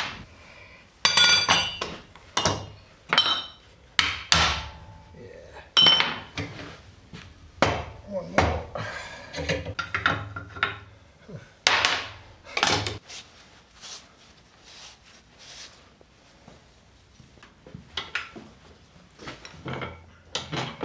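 Hammer strikes on a Land Rover propshaft's steel yoke, driving out the caps of a worn universal joint. A dozen or so sharp, ringing blows come at irregular intervals, then thin out after about thirteen seconds into lighter knocks and clinks.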